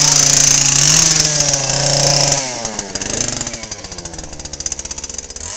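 Electric chainsaw, its chain apparently removed, running at full speed with a steady high whine, then released about two seconds in so the motor winds down with a falling pitch, and spinning up again near the end.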